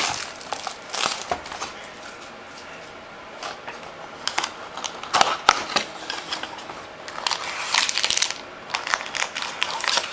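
A sealed box of trading cards being opened and its packs pulled out: irregular bursts of crinkling plastic and rustling, crackling cardboard.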